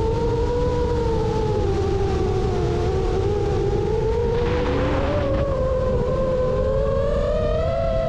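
Quadcopter FPV drone's motors and propellers whining, several close tones wavering up and down in pitch as the throttle changes, over a steady rush of air. About halfway through the tones spread apart and then climb a little toward the end.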